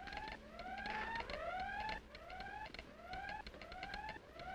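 A wailing siren sounding as an escape alarm from a mental hospital, heard as a run of repeated rising whoops that each cut off and start again.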